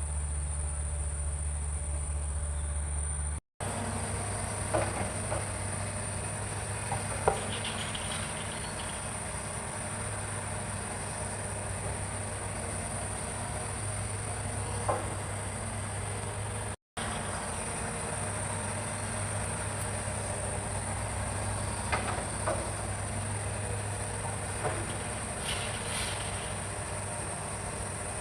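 Hitachi excavator's diesel engine running steadily, with a few scattered knocks and clanks as it works, under a constant high-pitched insect drone. The sound cuts out abruptly twice.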